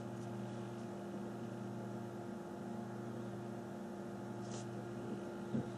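Steady low electrical hum, with a faint brief rustle about four and a half seconds in and a small tap near the end.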